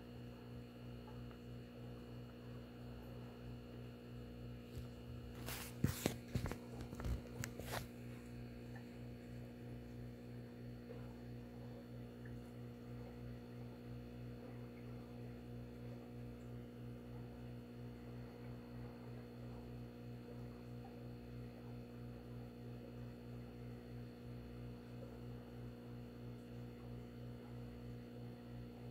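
Steady electrical mains hum with a slight pulsing. About six seconds in comes a quick cluster of sharp clicks and knocks lasting about two seconds.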